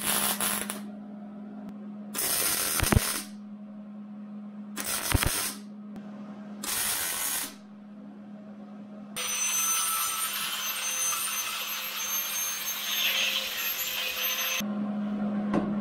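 MIG welder tacking 1/8-inch steel: four short bursts of arc crackle, each about a second or less. Then a Skil angle grinder grinds the weld for about five seconds, starting about nine seconds in, with a steady low hum underneath throughout.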